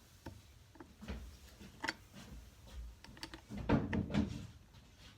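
Tools and small carburetor parts clicking and knocking on a workbench as a small-engine carburetor is unbolted and taken apart. There are a few sharp clicks about a second apart, then a louder clatter of knocks about four seconds in.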